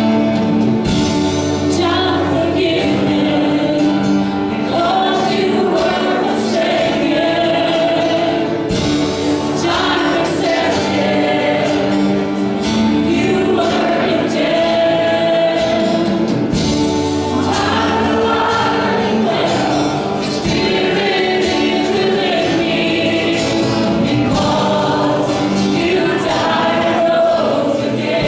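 Worship team singing a gospel praise song with a band accompanying, with a steady beat.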